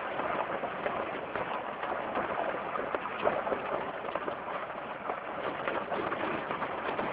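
Jeep Wrangler driving a rough off-road track: a steady crunching clatter of tyres on loose ground, full of small clicks and knocks, with no clear engine note.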